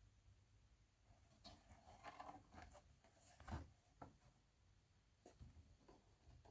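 Near silence with faint rustling and a few soft, scattered clicks.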